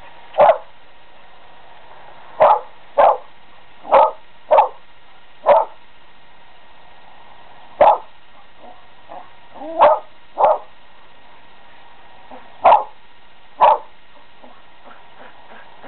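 A dog barking excitedly up at a squirrel out of reach: eleven sharp single barks at irregular gaps, some in quick pairs, with a few fainter yips in between.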